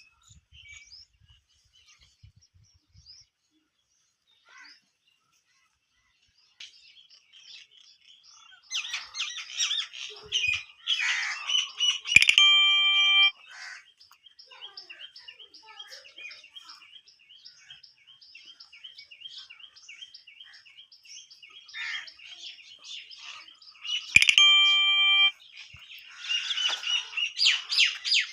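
Birds chirping and calling, starting about eight seconds in. Dense chirping comes in bursts, with a long run of quick, evenly repeated chirps between them. Twice, a steady held tone of about a second sounds over the birds.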